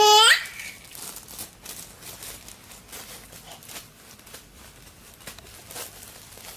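A baby's brief, high, rising squeal of laughter right at the start, then faint rustling and small clicks.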